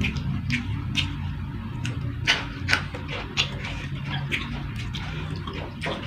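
Close-up eating sounds: wet mouth clicks and smacks of chewing, a few each second, over a low steady hum.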